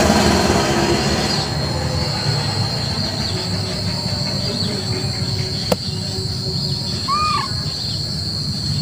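Steady low rumble, louder in the first second or so, under a constant high-pitched insect drone. A single sharp click comes a little before the six-second mark, and a short rising-and-falling chirp follows about a second and a half later.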